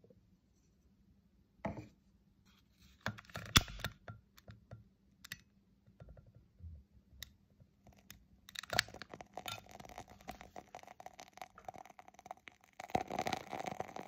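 Handling of a wooden candle lid, with a sharp clack about three and a half seconds in, then a long-neck lighter hissing as it lights a candle's wooden wick, which crackles near the end.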